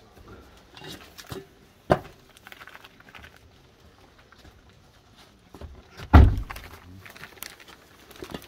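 Knocks and thuds of things being handled in a car's boot: a sharp knock about two seconds in and a heavier, deeper thud about six seconds in, with light rustling and bumping between.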